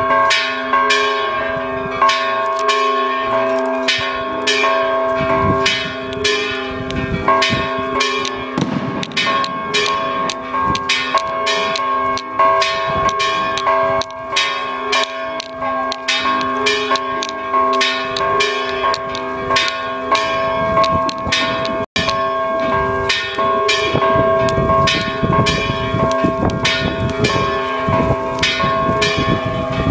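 Church bells ringing in a fast, steady peal of about two to three strokes a second, each stroke left ringing into the next.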